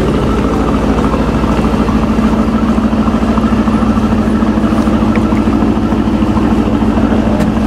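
2018 Aston Martin Vantage's twin-turbo V8 with sport exhaust idling steadily, a loud, even, low burble from the tailpipes.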